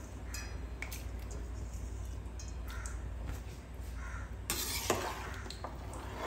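Rice and water cooking in a large aluminium pot on a gas stove on high flame, with light clinks of metal against the pot. A louder metal clatter comes a little past the middle, then a steel ladle stirs through the rice.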